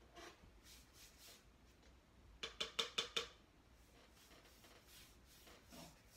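A paintbrush knocked against the paint cup, a quick run of about six light taps about halfway through, with faint strokes of the brush on the wall before it.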